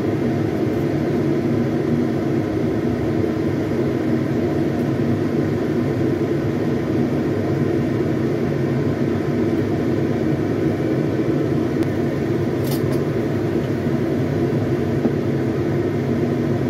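A steady, even mechanical hum that does not change, with one short click about three-quarters of the way through.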